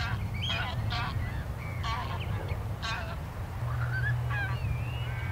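A flock of wild birds calling: a quick run of short, harsh honking calls, several a second, gives way after about three seconds to thin whistled calls that glide up and down in pitch, over a steady low rumble.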